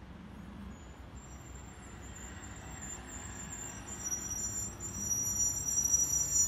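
Street traffic: a heavy road vehicle draws closer, its engine rumble growing louder, with a high steady whine building over it toward the end.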